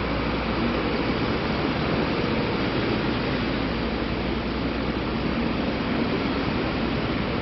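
Steady city traffic noise from vehicles passing on a multi-lane road, a constant rush with a low rumble that eases about two seconds in.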